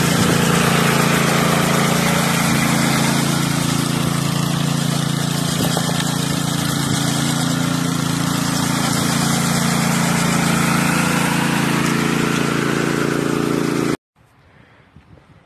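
Small gasoline engine of a walk-behind concrete power trowel running steadily as its blades float the fresh slab. It cuts off abruptly near the end, leaving faint wind and rustling.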